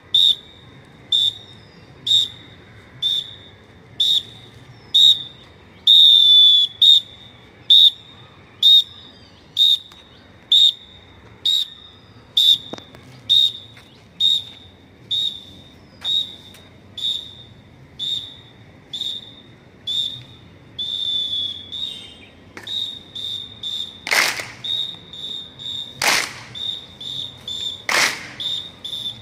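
A drill instructor's whistle blowing short, shrill blasts about once a second to set the beat for a mass drill, with a longer blast about six seconds in. Near the end the blasts come faster, about twice a second, with a few loud sharp claps among them.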